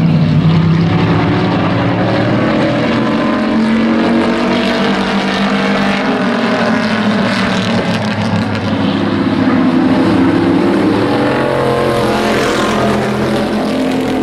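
A pack of hobby-class pickup race trucks running at racing speed around the oval, several engines going at once, their pitch rising and falling as the trucks pass and work through the turns.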